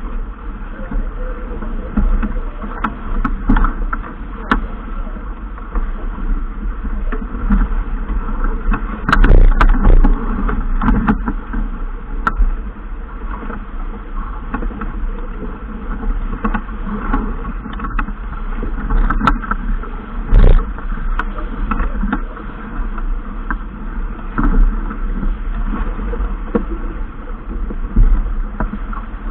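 Boat under way on open water: a steady low rumble of wind and water noise, with scattered sharp knocks and clatter, the loudest about a third of the way in and again around two-thirds.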